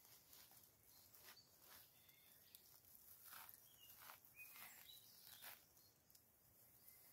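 Faint scattered rustles and soft tearing as moss is pulled off a tree trunk by hand, with a few faint bird chirps.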